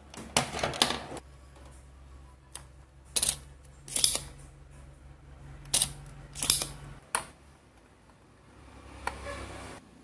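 Sharp, irregular clicks and taps of a soldering iron and tweezers against a circuit board as a small diode is desoldered and lifted out, over a low steady hum.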